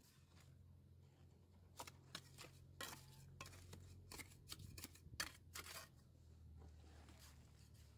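Mason's trowel scraping and tapping wet mortar against stone: a run of short, sharp scrapes and clicks, most between about two and six seconds in, over a faint low hum.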